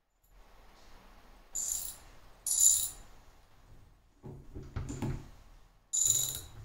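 Metal tap parts and tools being handled: three short, bright jingling clinks with a ringing edge, about 1.5 s in, 2.5 s in and near the end, with duller knocks between them as the chrome swivel outlet under the mixer tap is turned by hand.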